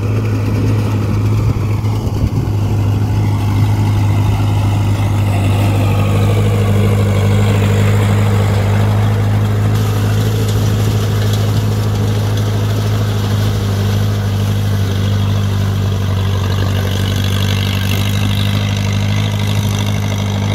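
Kubota 1501 tractor with a swapped-in engine running steadily as it works a flooded rice paddy, a steady low diesel drone that grows a little louder as the tractor comes closer.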